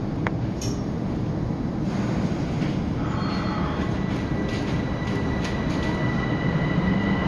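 Metro train heard from inside the car as it pulls out of a station: a steady low rumble of wheels and running gear, slowly getting louder, with a thin steady whine coming in about three to four seconds in as it gathers speed.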